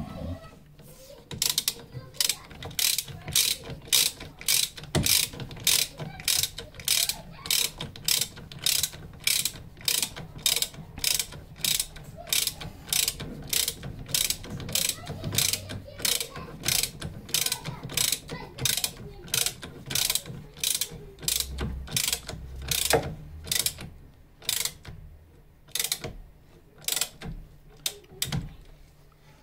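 Socket ratchet clicking as it is swung back and forth, about two clicks a second with a couple of short pauses, nipping up the bolts on a front brake caliper and hub assembly.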